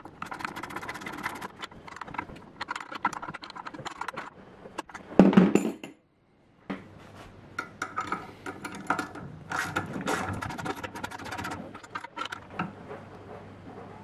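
Small metal bolts, washers and nuts clinking and clicking as they are handled and threaded in by hand. A louder knock comes about five seconds in, followed by a brief cut to silence.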